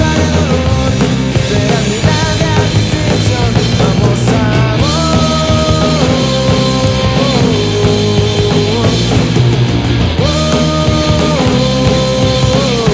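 Rock band playing loud, dense rock music, with a melodic lead line of long held notes that step down in pitch every second or two.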